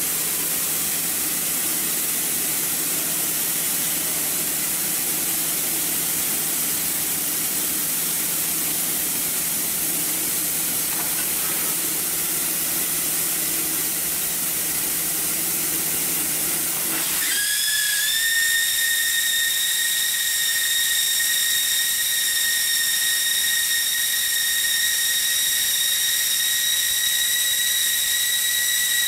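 Hot air welding machine running, its hot-air blower hissing steadily, with a low hum under it. About two-thirds of the way through the hum stops and a steady high whistle with several overtones sets in, rising slightly as it starts.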